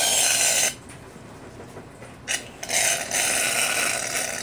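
Aerosol can of Gillette shaving foam spraying foam in hissing spurts: a short spurt of under a second, then after a pause a longer one of nearly two seconds.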